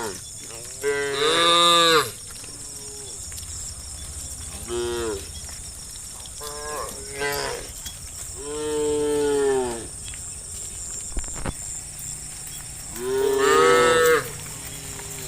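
Cattle mooing repeatedly, about five calls that each rise and fall in pitch. The loudest come about a second in and near the end, and a long drawn-out moo falls in the middle, over a steady high hiss.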